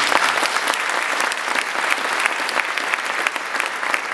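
Audience applauding: dense clapping from many hands, thinning a little near the end so that single claps stand out.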